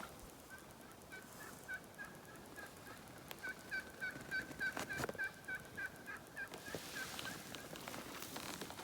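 Wild turkey hen yelping: a long run of short, even yelps, about three to four a second, lasting about six seconds. A single sharp click comes about five seconds in.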